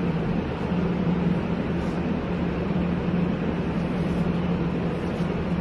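Steady hum and rushing noise of running restaurant kitchen equipment, with a constant low droning tone.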